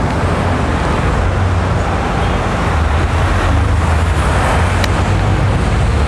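Steady low rumble of road traffic: engines droning under an even hiss of road noise.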